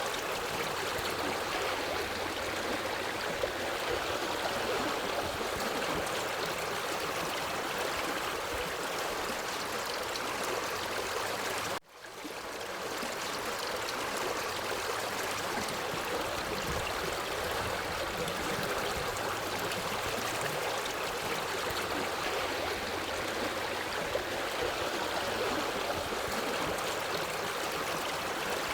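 A forest stream flowing steadily. Its level drops out sharply about twelve seconds in, then swells back within a second.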